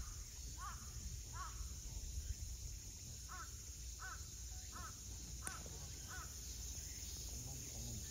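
A bird calling repeatedly: eight short calls, three in quick succession, a pause of about two seconds, then five more, each under a second apart.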